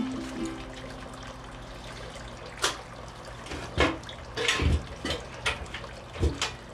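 A handful of separate knocks and thumps as a sawn half of a birch log is handled and set upright in a metal folding work stand.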